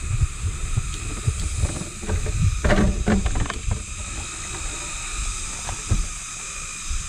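Uneven low rumble of wind and movement noise on the microphone, under a faint steady hiss, with a short scrape or rustle about three seconds in.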